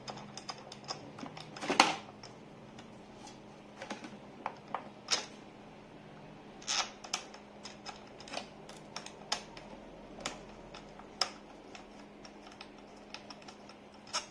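Irregular light metallic clicks and taps of an Allen key working mounting bolts into the tubular steel stand of an airless paint sprayer, with one sharper click about two seconds in.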